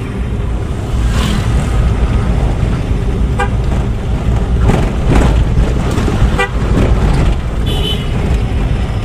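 A vehicle's engine running steadily while driving, with a few brief horn toots.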